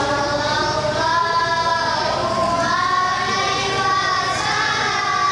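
A group of young girls singing a sholawat, an Islamic devotional song praising the Prophet, together into microphones, with long held and gliding notes.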